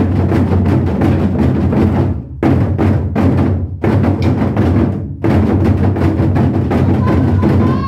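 Korean modeumbuk barrel drums beaten with sticks in fast, dense strokes, broken by short pauses about every one and a half seconds.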